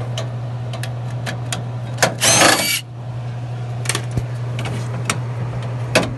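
A power drill or driver whirs briefly, under a second, about two seconds in, backing out a screw that holds the vending machine's refrigeration unit. Sharp metallic clicks of tools and screws come before and after it, over a steady low hum.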